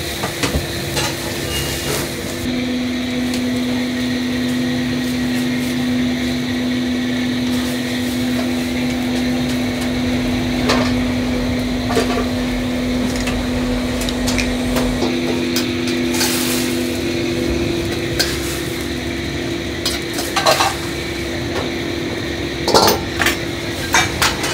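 Restaurant kitchen: vegetables sizzling and being stirred in a wok over a gas burner, with ladle and dish clatter over a steady hum. Near the end come a few sharp clinks of bowls on the steel counter.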